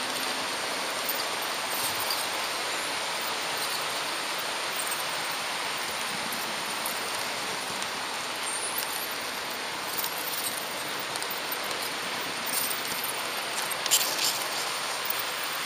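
HO-scale model train rolling along Märklin track with a steady rushing hiss. Small clicks are scattered through it, and there is one sharper click near the end.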